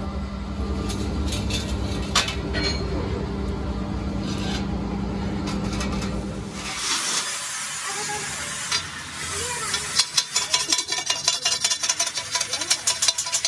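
Arc welding on the seam of a rolled steel rim band: a steady electrical hum with the crackle and sizzle of the arc and a few sharp clicks. About seven seconds in this stops, and after a short lull a hand tool knocks rapidly on the steel ring's welded seam, about five strikes a second.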